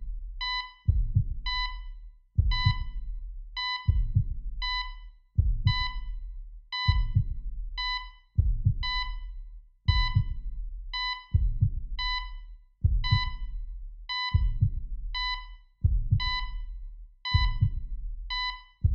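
Heart-monitor sound effect: deep double heartbeat thumps about every one and a half seconds, with short electronic monitor beeps repeating over them.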